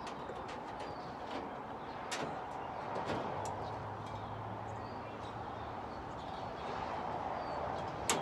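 Occasional knocks and clatter of wooden boards being pried out of a rabbit hutch floor, with a sharper double knock near the end, over a steady outdoor hiss.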